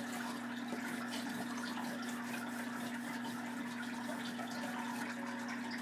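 Oil pastel and fingertips rubbing across paper, a steady scratchy hiss of colouring and blending strokes, over a constant low hum.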